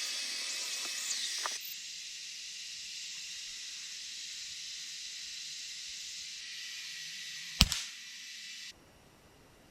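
Steady high-pitched drone of forest insects such as cicadas or crickets. A single sharp crack sounds about seven and a half seconds in, and the audio cuts to silence a second later.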